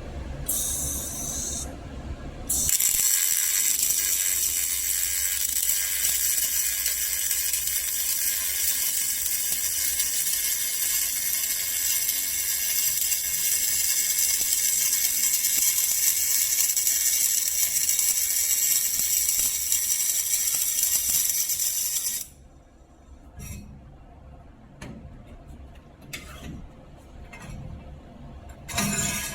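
MIG welding arc from a Hyundai MIG-350GDL welder: a short burst about a second in, then a steady, loud hiss with high-pitched tones for about twenty seconds that cuts off suddenly, followed by a few light clicks.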